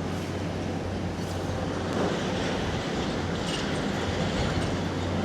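Steady low rumble of a distant demolition site, with a constant low engine hum from the heavy demolition machine working the building and brief hissy swells about one and three and a half seconds in.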